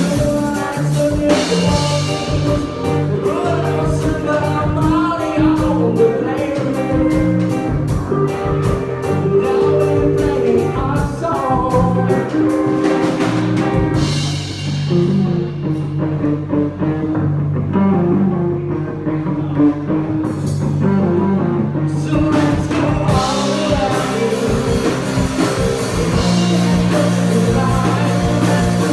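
A song with a singing voice over a band, with a steady beat. The drums drop out about halfway through for several seconds, then come back in.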